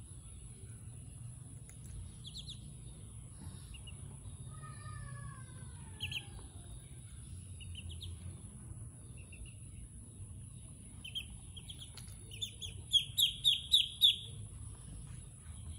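Ducklings peeping in short high calls, with a falling run of calls about five seconds in and a quick burst of about five loud peeps near the end.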